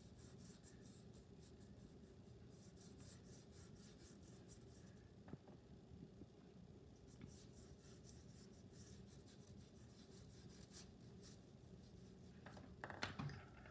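Faint, quick, scratchy strokes of a watercolour paintbrush on paper, in two runs with a pause between, over a low room hum. A few louder knocks come near the end.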